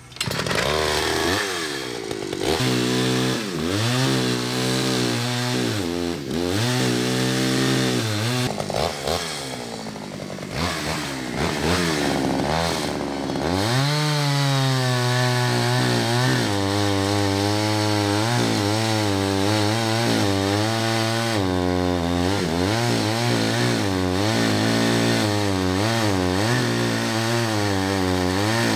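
Vintage Pioneer P41 66 cc two-stroke chainsaw running, its revs repeatedly dipping and rising at first, then held high at full throttle while cutting into a tree stump. The owner says the saw needs some tuning.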